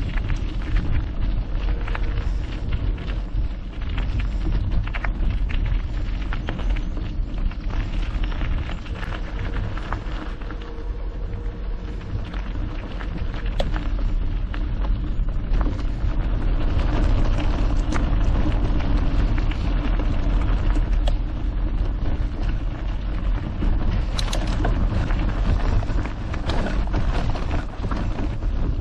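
Mountain bike rolling along a gravel trail: a steady rumble of tyres over loose stones, with many small clicks and rattles throughout.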